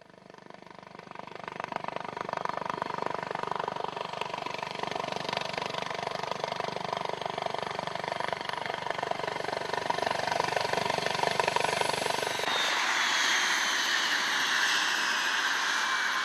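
Eurocopter AS365 Dauphin helicopter approaching, growing louder as it comes in, its rotor beating rapidly. About twelve seconds in the sound changes abruptly to a steady rushing turbine noise with a high whine that slowly falls in pitch.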